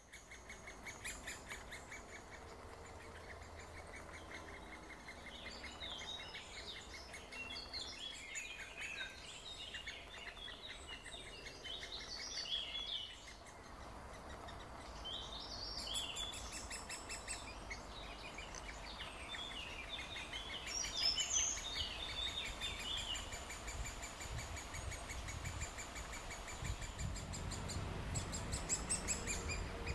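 Great spotted woodpecker nestlings begging inside the nest hole: a fast, steady ticking chatter, with bursts of higher twittering calls through the middle.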